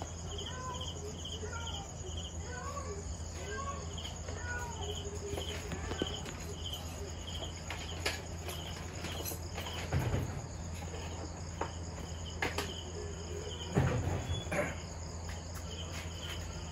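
Crickets chirping in short, repeated pulses over a steady low hum, with faint voices in the background. A few soft knocks and clicks come from wiring connectors being handled, the loudest about ten and fourteen seconds in.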